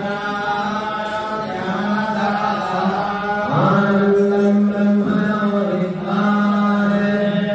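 Devotional Hindu mantra chanting, sung in long notes held on one steady pitch, with a brief break in the line about three and a half seconds in.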